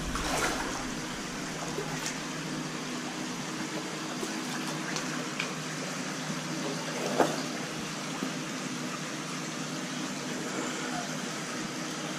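Shallow creek water running and trickling over rocks, a steady rush, with one short sharp knock about seven seconds in.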